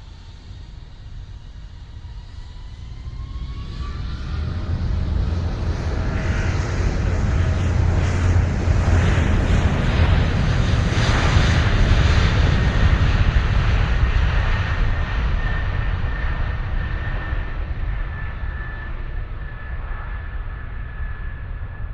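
Airplane flying past: its engine noise swells to a peak about halfway through and then fades away, a deep rumble with a high whine running through it.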